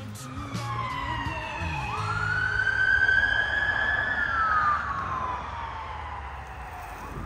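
A siren wailing: its pitch climbs sharply about two seconds in, holds high, then falls slowly away, over a steady low hum.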